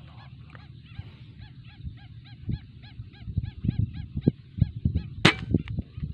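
A bird calling a steady series of short arched notes, about three a second, then, about five seconds in, the single sharp crack of a Dhemit Freedom PCP air rifle shot. Low knocks and rustles of handling build up before the shot.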